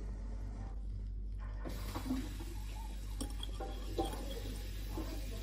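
Metal fork stirring red jelly liquid in a glass bowl: the tines clink and scrape against the glass in short irregular strokes, starting about a second and a half in, over a steady low hum.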